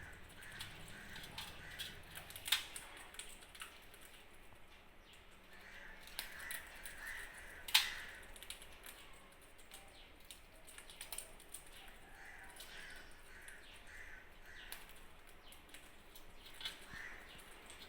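Parrots making short, rapidly repeated calls in a few bouts, with scattered sharp clicks and taps, the two loudest about 2.5 and 8 seconds in.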